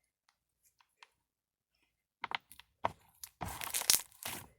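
Crunchy slime being squished and pressed in the hands, crackling and popping. A few faint clicks at first, then sharp crackles from about two seconds in that become a dense crackle toward the end.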